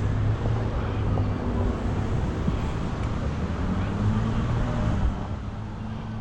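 A motor vehicle engine running, a low hum whose pitch shifts up and down a little, over traffic noise.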